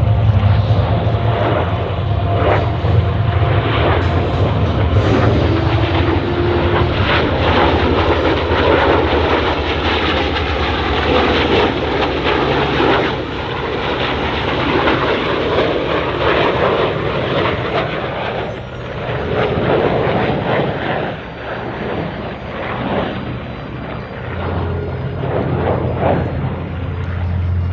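Heritage Flight formation of an F-22 Raptor jet fighter and an A-1 Skyraider radial-engine propeller plane flying past: a loud, continuous engine rush over a deep hum, easing somewhat in the second half.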